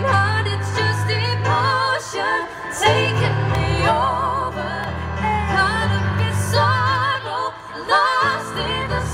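Live band playing a song: women singing with a wavering vibrato over keyboard and sustained bass notes.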